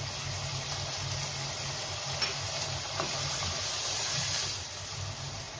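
Mutton in yogurt masala sizzling in a frying pan on a gas burner, a steady hiss, while the masala is fried down (bhuna) with the yogurt.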